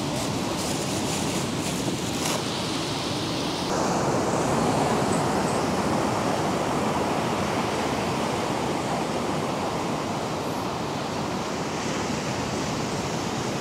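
Surf breaking on a sandy beach: a steady wash of waves, a little louder from about four seconds in.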